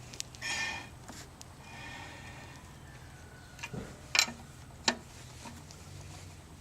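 Hand-tool work on brake parts during a brake caliper fitting: a short scraping rustle about half a second in, then three sharp metallic clinks between about three and a half and five seconds in, over a low steady hum.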